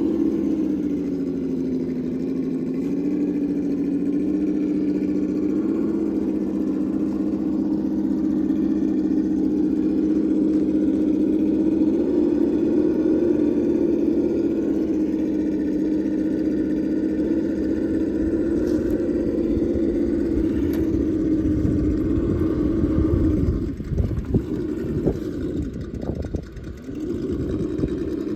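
Traxxas Defender RC crawler's electric motor and gear drive whining steadily at crawling speed, its pitch rising and falling slightly with the throttle. Near the end the whine cuts in and out as the truck stops and starts, with low thuds from the chassis over the terrain.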